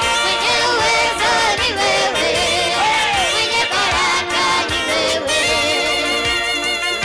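Church worship music: a praise song sung by a lead singer on a microphone and the congregation together, over instrumental backing.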